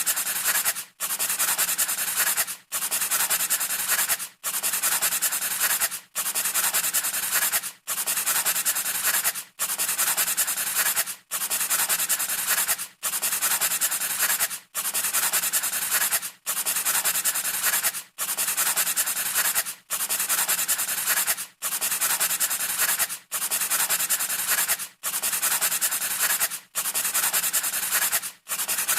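A scratchy rubbing sound effect, like a pencil or abrasive scratching a hard surface, repeated as a loop. Each identical stretch lasts about 1.7 seconds and is cut by a brief gap.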